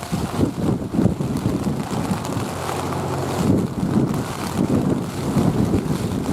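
Loud wind buffeting on the microphone: a gusty low rumble that swells and dips without a steady rhythm.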